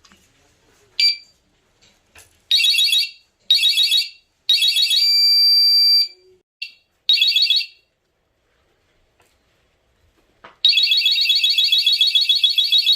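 Electric scooter anti-theft alarm unit sounding: a short chirp, then three short warbling bursts, a steady beep of about a second and one more burst. Near the end it breaks into a continuous, loud warbling alarm.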